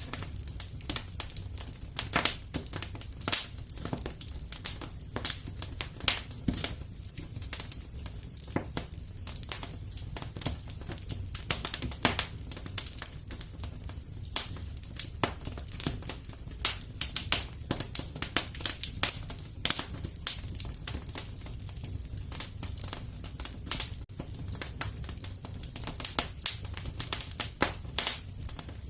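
Wood fire crackling in a fireplace: irregular sharp pops and snaps over a low, steady rumble of flame.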